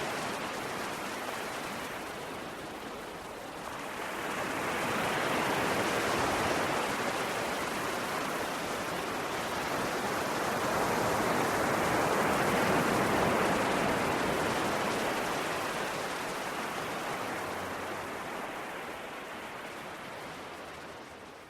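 Sea waves washing onto the shore: the surf swells up about four seconds in and again, louder, around the middle, then slowly eases off.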